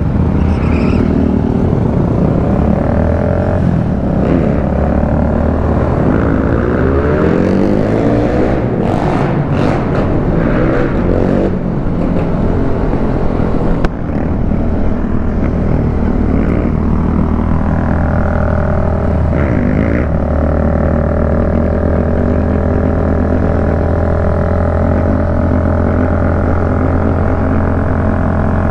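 Motorcycle engine running while riding, its pitch rising and falling with speed and gear changes, over a steady low rumble.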